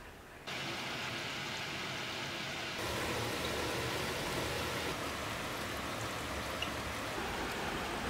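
Steady rain falling, an even hiss that grows louder in two steps, about half a second in and again near three seconds.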